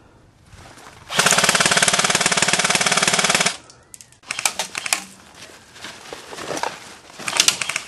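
Airsoft electric gun (AEG) firing a long full-auto burst of about two and a half seconds, a rapid even rattle. Shorter, quieter bursts follow about halfway through and near the end.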